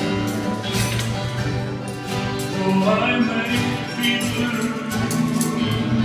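Live band music with singing.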